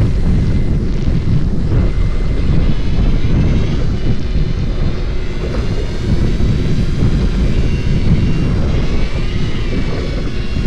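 Fishing boat's engine running with a steady low rumble, mixed with wind and sea noise on the microphone. A faint wavering whine comes in about three seconds in.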